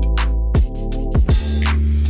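Background music with electronic drums: a deep kick drum, snare and hi-hat hits over sustained synth chords.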